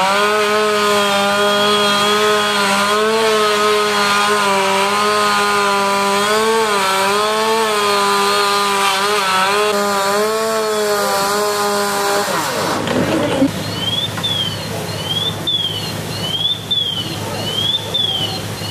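Two-stroke chainsaw running at high revs, its pitch wavering as it is worked into the fire-damaged roof, then cutting out about twelve seconds in. After that a high electronic alarm sweeps up and down, about once every three quarters of a second.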